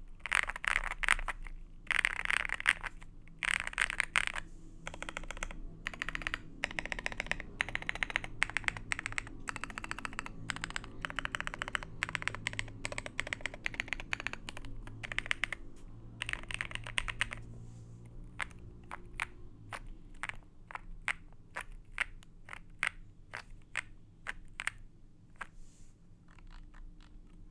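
Meletrix Zoom65 mechanical keyboard with 67 g Epsilon switches on a polycarbonate plate being typed on: quick, dense runs of keystrokes, thinning out after about two-thirds of the way through into single key presses a fraction of a second apart.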